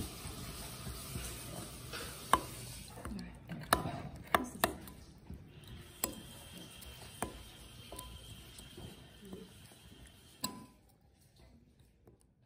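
A metal spoon stirs a wet, chunky dipping sauce in a glass bowl, with squelching and scraping broken by several sharp clinks of the spoon against the glass. The sound dies away near the end.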